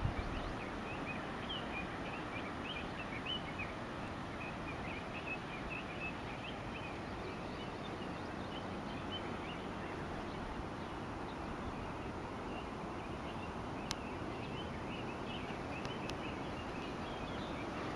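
Steady wind noise with many small birds chirping, short high chirps repeating quickly all through.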